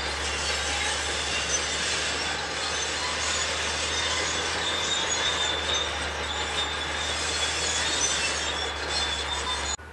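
Caterpillar D6 crawler dozer working: a steady diesel engine under the squeal and clank of its steel tracks.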